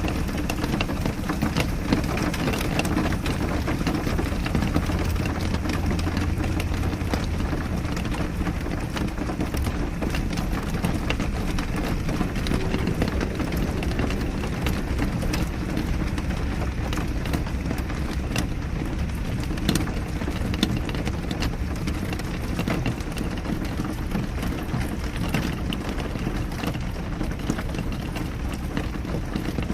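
Steady rain falling, with a dense patter of drops over a low rumble.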